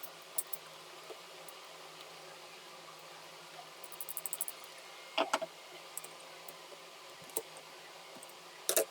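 Scattered light clicks, a short run of ticks and a few louder clatters of hand work on wiring, over a faint steady hum.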